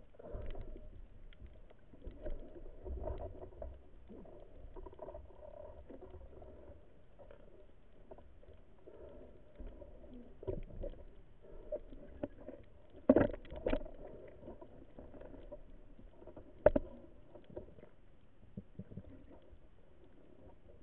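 Muffled underwater sound heard through a camera's waterproof housing: water movement and handling rustle, broken by a few sharp knocks. The loudest knocks are a pair about thirteen seconds in and a single one a few seconds later.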